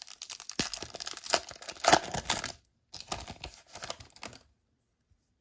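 A hockey card pack's wrapper being torn open and crinkled: two stretches of crackling, the first longer, then a pause near the end.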